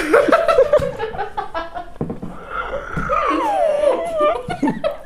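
Boys laughing: a quick run of laughs over the first couple of seconds, then a long high-pitched laugh that falls in pitch about three seconds in.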